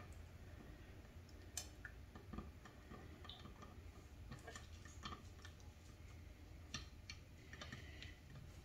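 Near silence with faint, irregular small clicks and taps: hands and a fork moving a mashed ripe-plantain patty through beaten egg on a ceramic plate.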